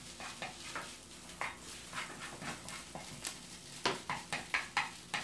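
Spatula stirring and scraping kimchi fried rice in a frying pan, in short irregular strokes, with a quicker run of them about four seconds in.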